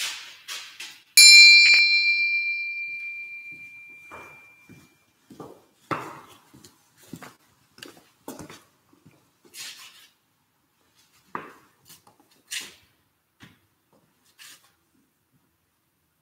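A small bell struck once, its bright ring fading away over about three seconds. Then scattered footsteps, light knocks and clinks as a chalice is carried to the altar and set down.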